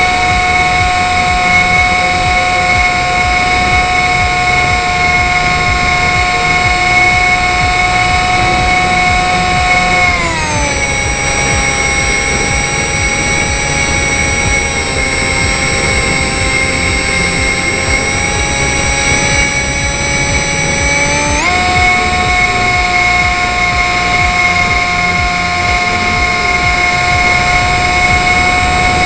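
Foam RC plane's electric motor and propeller whining steadily, heard close up from the onboard camera, over a low rush of air. About ten seconds in the whine drops smoothly in pitch as the throttle is eased back, then jumps back up to its earlier pitch about eleven seconds later as the throttle is opened again.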